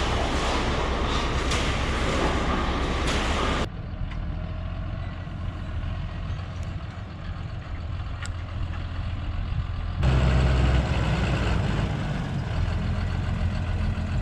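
Vehicle engine running steadily, heard across edited shots: loud with heavy noise at first, cutting suddenly to a quieter low engine hum about four seconds in, then jumping to a louder engine about ten seconds in.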